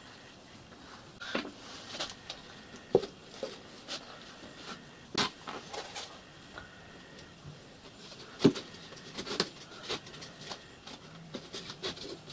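OSB wooden panels knocking and scraping against each other and the bench as they are handled and fitted together into a box. There are scattered light clicks and sharp knocks, the loudest about three, five and eight and a half seconds in.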